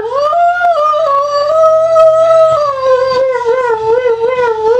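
A Dalmatian howling one long note along to music. The howl climbs at the start, holds, then slowly sinks with a slight wavering near the end, while the song's beat plays underneath.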